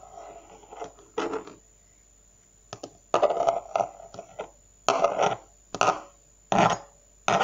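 Blue slime blobs being cut with a small plastic knife and pressed and lifted off a tabletop with fingertips: a run of short, sharp sticky noises, one about a second in and then roughly one a second through the second half.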